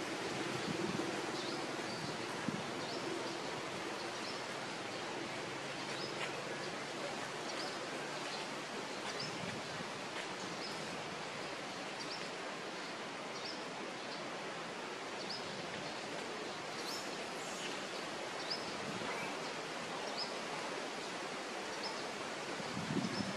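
Steady outdoor background noise, with a short high chirp repeating about once a second.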